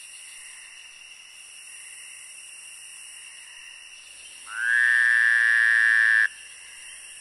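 Frog croaking over a steady background of night insects. About four and a half seconds in comes one loud, drawn-out croak that holds for nearly two seconds and cuts off suddenly.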